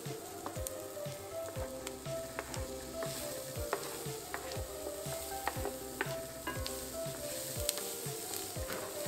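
Diced onion sizzling in a non-stick frying pan while being stirred with wooden spatulas, with frequent sharp clicks of wood scraping and tapping against the pan.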